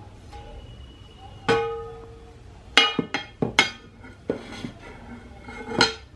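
Non-stick pans clinking and knocking against each other and onto a surface as they are handled and set down. One ringing knock about a second and a half in, a quick run of sharp knocks in the middle, and one more near the end.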